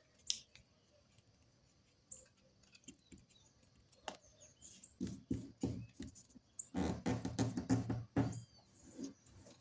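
A sheet of paper being folded by hand on a wooden tabletop: scattered light crinkles and taps, then a denser stretch of rustling and scraping from about five seconds in, loudest around seven to eight seconds, as the diagonal fold is worked and pressed down.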